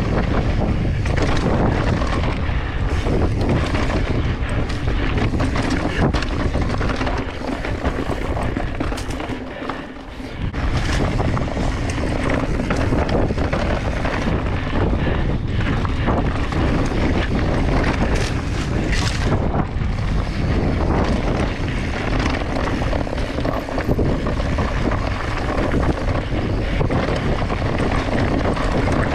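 Mountain bike ride: wind buffeting the camera microphone, knobby tyres rolling over dirt and loose rock, and the bike rattling over bumps. The noise eases briefly about ten seconds in.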